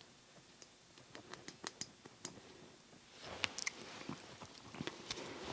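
Faint, scattered clicks and light metallic taps of the small parts of a disassembled METCOID 1/4-inch ratchet being handled and poked at, growing more frequent from about three seconds in.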